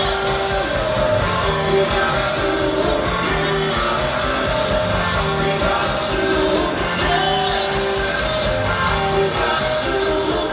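Rock band playing live, with a singer over held chords and a cymbal crash every few seconds.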